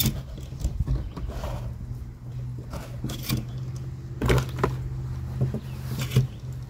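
Handling noises: a few scattered clicks and knocks of objects being picked up and worked, over a steady low hum.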